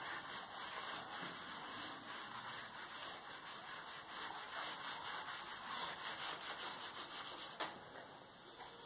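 Eraser rubbing across a whiteboard in repeated faint wiping strokes, clearing marker writing off the board, with one light tap near the end.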